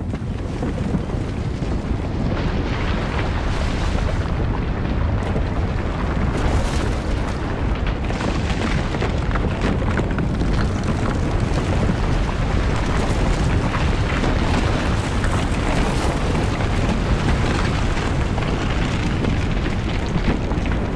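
Earthquake sound effect: a loud, continuous deep rumble with scattered crackles over it, holding steady throughout.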